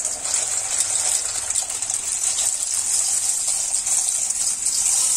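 Water at a rolling boil bubbling and hissing steadily in a steel pot as dry shell macaroni is poured in.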